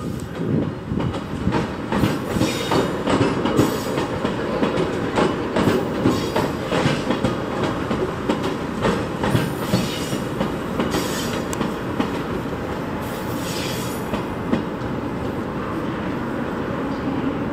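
A JR Central 383 series electric limited-express train rolling slowly past, its wheels clacking unevenly over rail joints and points under a steady rumble of the moving cars.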